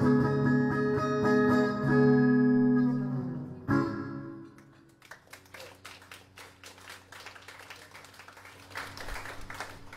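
Fingerstyle playing on a Crafter SA acoustic guitar, ending on a last chord struck a little over three seconds in that rings and fades away. Then scattered audience applause begins.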